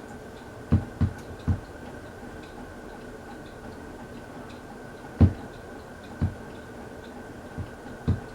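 Hampton Bay Roanoke ceiling fan running on medium speed with a steady hum, broken by a few irregular low knocks: three close together about a second in, then more around five, six and eight seconds in. The fan has a slight wobble.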